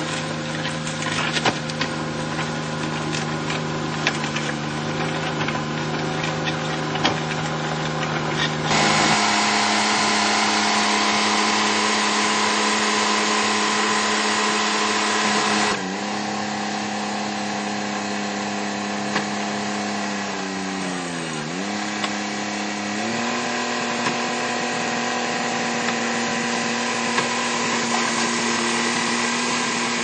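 Engine of a Fiat 500 converted to a tracked bulldozer, running steadily with sharp clicks over the first several seconds. About nine seconds in it runs faster and louder for several seconds, then settles back; near two-thirds of the way through the engine speed sags briefly before picking up again.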